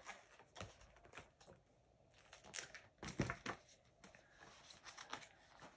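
Faint rustling and soft taps of a picture book's paper pages being turned and handled, with a short run of louder rustles about three seconds in.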